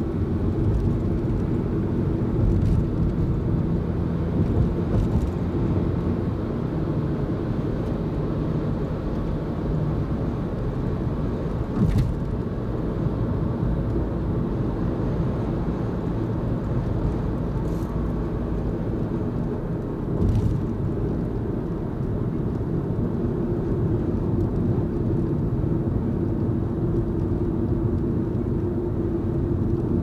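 Car road noise heard from inside the cabin while driving: a steady low rumble of tyres and engine, with a few brief light knocks about twelve and eighteen seconds in.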